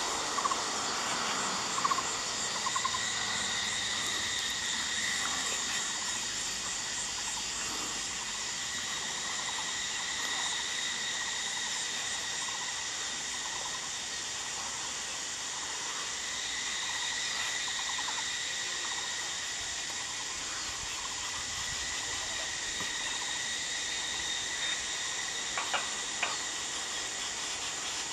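Steady, unbroken insect chorus with a constant high-pitched drone. A couple of short sharp clicks sound near the end.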